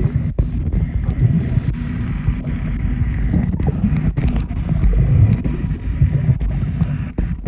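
Boat engine running steadily under way, a low rumble with wind buffeting the microphone.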